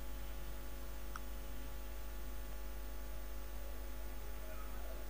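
Faint steady electrical hum, with a single faint click about a second in.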